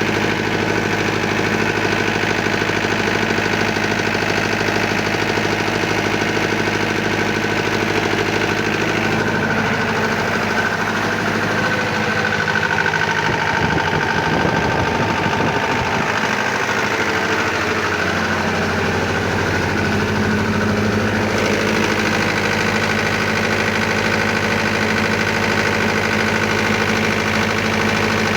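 Mahindra diesel generator engine running steadily after repair. For several seconds in the middle its note wavers and shifts, then settles back to the same steady running.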